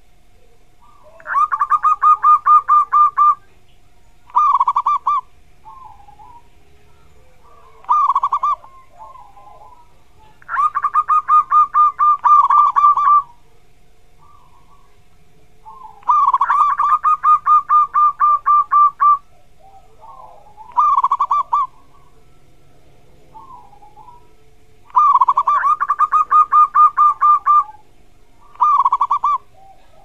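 Zebra dove (perkutut) singing its staccato cooing song. Four long runs of rapid, evenly spaced notes, each two to three seconds long, alternate with four short runs of under a second, with soft single notes in between.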